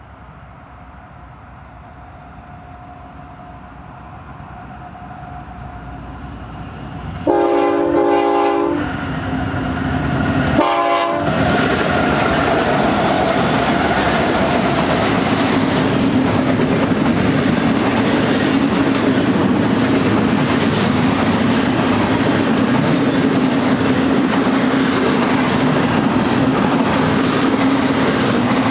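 BNSF freight train's GE diesel locomotive approaching with a growing rumble, then sounding its horn: one long blast of several tones at once, and a short blast about two seconds later. The train then passes with a steady rumble and clickety-clack of double-stack container and trailer cars rolling by.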